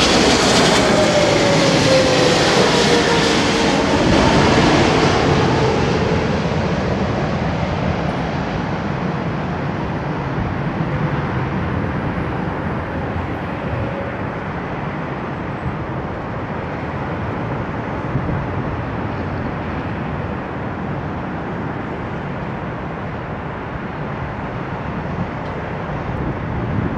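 Boeing 777's twin turbofan jet engines as the airliner passes low overhead on final approach: a whine that slides down in pitch over the first few seconds, then a steady rumble that eases off as the jet moves away toward the runway, swelling a little again near the end.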